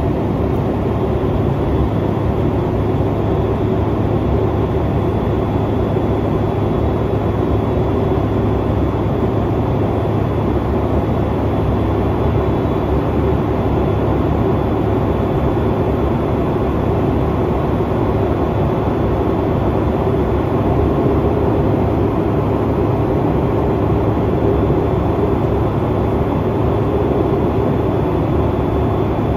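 Steady cabin noise inside an Embraer E190 jet airliner in flight: its turbofan engines and the rush of air over the fuselage, a deep even rumble with a faint high steady whine on top.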